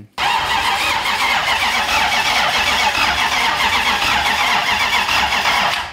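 Starter motor cranking a Toyota 1UZ-FE V8 that turns over steadily without firing, because the fuel pump and ECU are disconnected. It starts suddenly and cuts off near the end. The engine is being spun on the starter only to build oil pressure, and none is coming up.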